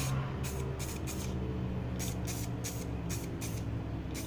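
Aerosol can of black general-purpose spray paint being sprayed in a series of short hissing spurts, about two a second, onto a small plastic piece.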